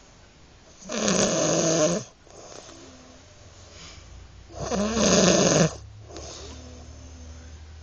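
A sleeping man snoring: two loud snores, each about a second long and about four seconds apart, with quieter breathing between them.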